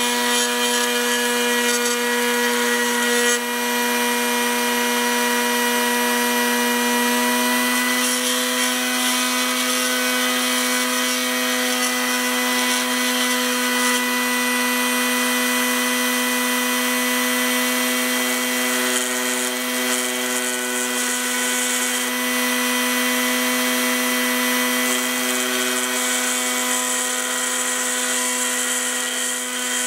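Electric bench grinder running steadily, with a constant motor hum and a continuous hiss as a steel sword blade is held against its wheel and ground.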